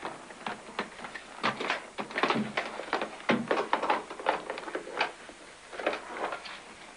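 A doctor's instrument case being opened and its contents handled: a string of quick clicks, knocks and rattles that thins out near the end.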